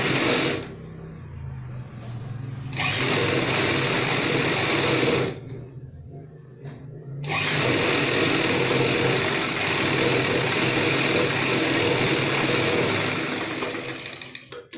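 Black cast-iron sewing machine stitching a seam that joins two cotton pajami panels. It runs in three goes, a short one at the start, one from about 3 to 5 seconds and a long one from about 7 seconds to near the end, with quieter pauses between them.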